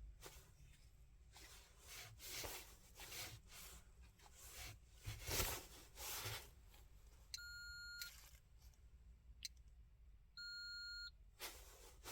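Two faint electronic beeps from a handheld OBD diagnostic scanner, each under a second long and about three seconds apart, as the stored fault codes are cleared. Soft handling noises and knocks come in between.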